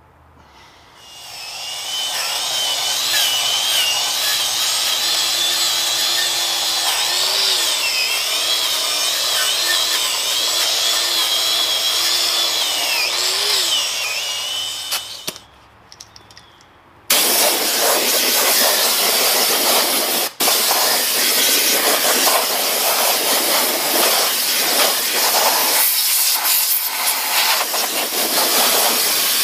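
Angle grinder with a wire wheel scrubbing rust off a cast iron faceplate, its motor whine dipping and wavering as it is pressed into the work. After a short pause, a compressed-air blow gun hisses steadily to blow off the dust, with one brief break.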